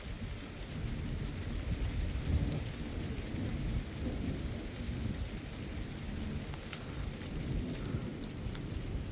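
Steady rain falling with thunder rumbling low underneath, the rumble swelling a little over two seconds in.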